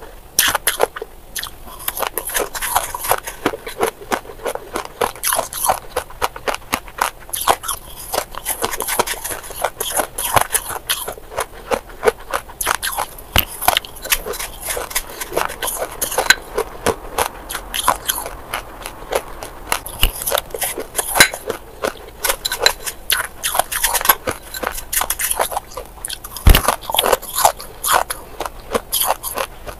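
Close-miked crunching and chewing of mouthfuls of shaved ice: a dense run of crisp crackling crunches.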